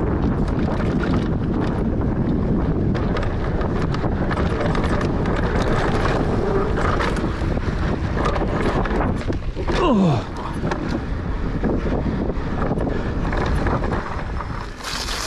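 Wind buffeting the microphone on a mountain bike ride, over the rumble of tyres and rattling clicks from the bike on a rough dirt trail. About ten seconds in, a short tone falls steeply in pitch at the loudest moment.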